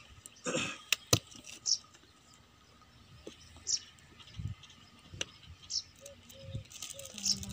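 A few sharp clicks about a second in, then soft knocks and rubbing of hands handling a hard banjo case, while a bird gives a short high chirp every one to two seconds.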